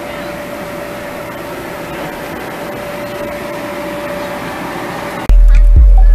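Electric blower fan keeping an inflatable bounce house inflated: a steady whirring with a constant hum. About five seconds in, loud music with a heavy bass beat cuts in abruptly.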